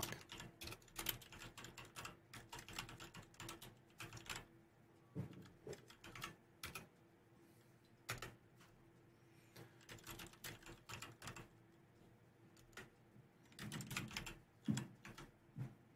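Typing on a computer keyboard: quick runs of keystrokes with short pauses between them, as shell commands are entered.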